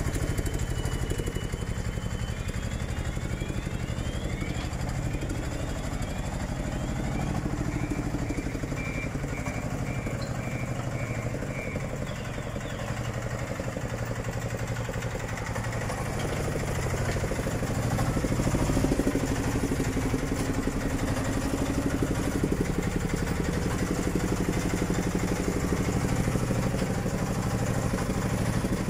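Small 496 cc diesel engine of an AGRO-CAR 4x4 utility vehicle idling steadily. It gets somewhat louder a little past the middle.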